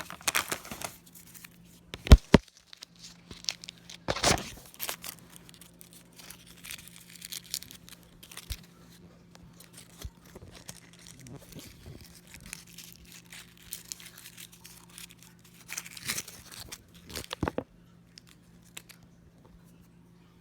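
A cough drop wrapper being torn open and crinkled in irregular bursts, with two sharp clicks about two seconds in. The handling stops a few seconds before the end.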